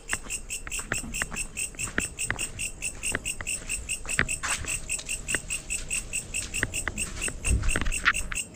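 Night insects chirping in a steady, even pulse of about six chirps a second, with scattered small clicks and knocks.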